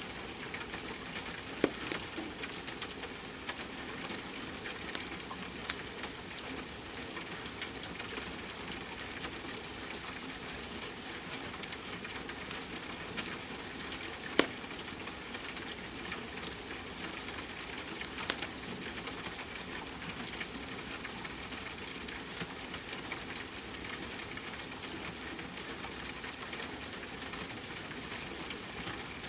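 Steady hiss of rain with a wood fire crackling, giving a scattering of sharp snaps and pops.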